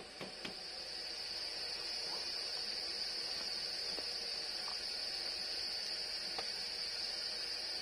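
Steady high-pitched chorus of forest insects, one continuous drone, with a couple of light knocks in the first half second.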